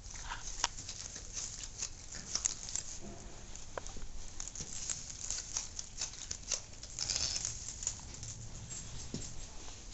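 Dry straw bedding rustling and crackling as a pot-bellied pig roots through it with its snout: a continuous run of small crackles.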